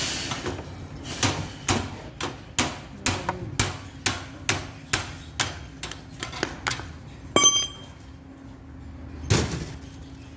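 Rapid tapping knocks on a steel wire barbecue grill basket's new handle joint, about two to three a second, then a single knock that leaves a brief metallic ring, and one heavier thud near the end.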